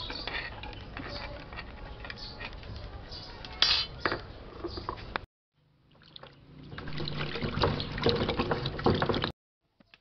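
Hands splashing and rubbing lemongrass, red chillies and roots in a plastic basin of water, building from about six seconds in and cutting off suddenly. Before that, chopped ginger and shallots being scraped off a knife blade into a clay pot, with a sharp knock a little before four seconds.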